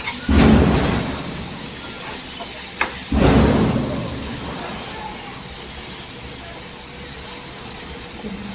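Grated apple cooking in oil in a pan with a steady sizzle, and two louder spells of stirring, about a second each, near the start and about three seconds in, with a light tap just before the second.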